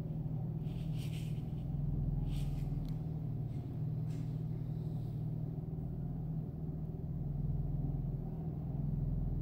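Steady low background hum, with a few faint soft ticks and rustles in the first few seconds as small glass beads are picked up from paper with a needle.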